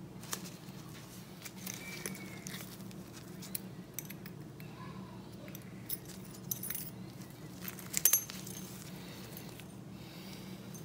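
Small metal parts of an Amal carburettor clicking and clinking as they are handled: the slide, needle, clip and return spring being fitted together. The clinks come scattered and irregular, the loudest about eight seconds in, over a steady low hum.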